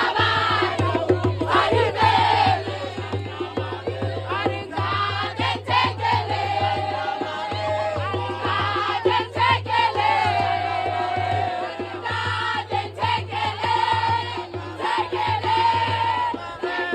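Music with several voices singing in a choral, chant-like style.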